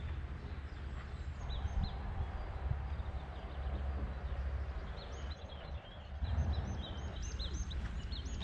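Small songbirds chirping in short, repeated high notes, sparse at first and busier from about halfway through, over a steady low rumble.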